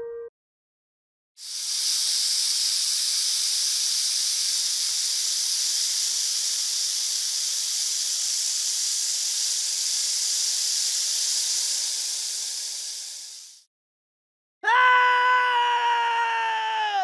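A steady, even hiss from a sound-effect clip, lasting about twelve seconds, then a short pitched tone that sags slightly in pitch toward its end.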